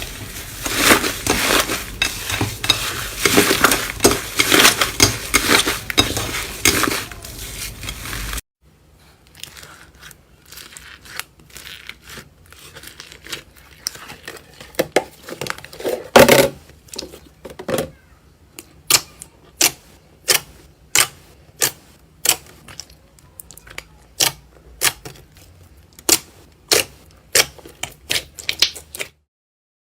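Slime being squeezed and worked by hands: dense crunchy crackling for several seconds, then, after a cut, quieter squelching broken by sharp pops and clicks. The pops come regularly, about one or two a second, near the end.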